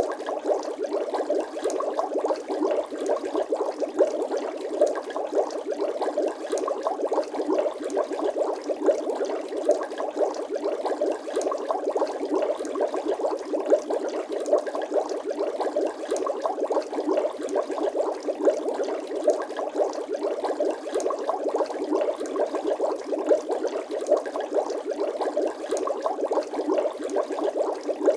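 Bubbling water sound effect: a continuous, dense stream of small bubbles popping rapidly and unevenly, with no pauses.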